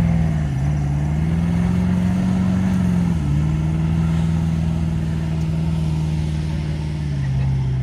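An SUV engine held at high revs under load as it spins its tyres, bogged in soft beach sand. The engine note dips briefly about half a second in and again about three seconds in, then drops lower just before the end.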